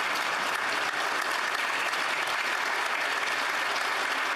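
Many people applauding together: dense, steady clapping at an even level.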